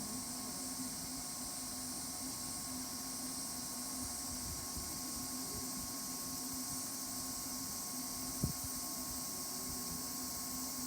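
Wood campfire burning: one sharp pop from the burning wood about eight and a half seconds in, over a steady high hiss.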